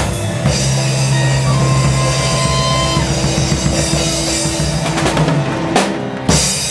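Live praise band playing rock music, an instrumental passage carried by drum kit with cymbals and a sustained bass line, with heavy drum hits near the end.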